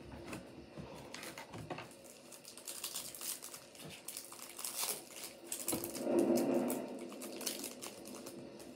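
Crinkling and rustling of a Topps Chrome baseball card pack's foil wrapper being torn open and handled, made of many small irregular crackles. About six seconds in a brief, louder low hum sounds over it.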